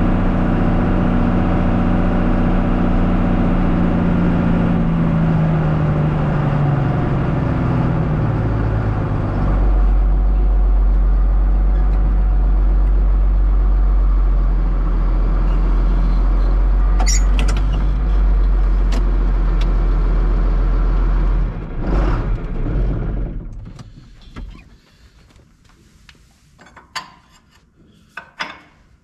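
John Deere tractor's diesel engine heard from inside the cab, its pitch falling as it slows over the first several seconds, then running steadily at a low hum. The engine sound cuts off about 22 seconds in, leaving a quiet background with a few sharp clicks near the end.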